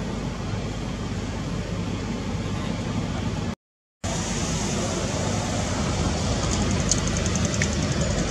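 Steady outdoor background noise with a low rumble, dropping out completely for about half a second a little over three and a half seconds in, with a few faint high clicks near the end.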